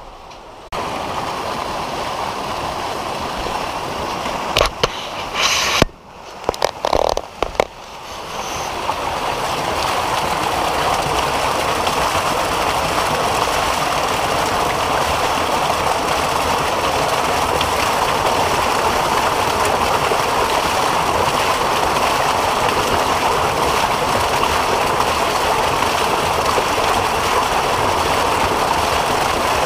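Water gushing hard from an inflow pipe into a hatchery pool, a steady loud splashing rush. A few sharp knocks come about five to eight seconds in, before the rush settles in at full strength.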